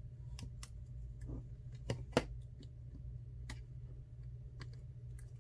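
Small sharp clicks and taps from handling the phone and tools while connecting the new iPhone XR screen's flex cable connector, with two louder clicks close together about two seconds in, over a steady low hum.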